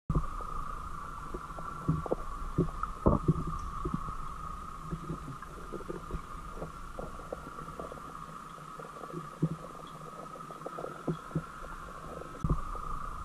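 Muffled underwater sound picked up by a GoPro action camera's microphone: irregular low knocks and bumps from water moving against the camera and from handling, over a steady high hum.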